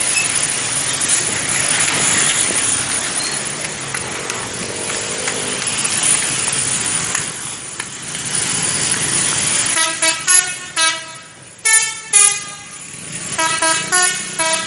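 A bus's telolet horn, a multi-tone musical air horn, playing a quick tune of short tooted notes at changing pitches, starting about ten seconds in. Before it there is steady road and engine noise.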